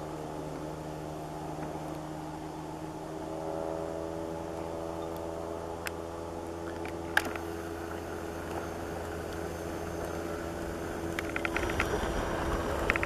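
An engine running steadily, a low hum with a slight rise in pitch about three and a half seconds in. A sharp click comes about seven seconds in, and quick clicks follow near the end.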